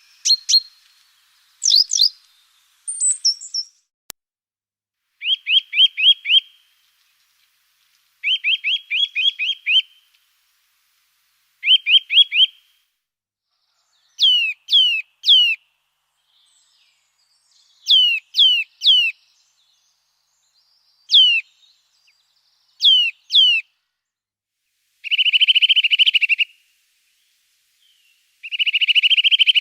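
Small songbirds calling in separate short phrases: quick runs of four to six clipped notes, groups of three sharp whistles that slide down in pitch, and near the end two buzzy rattles about a second long each.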